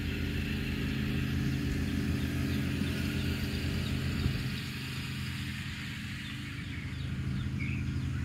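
Riding lawn tractor's engine running steadily as it drives slowly across the grass, a little quieter in the middle and picking up again near the end.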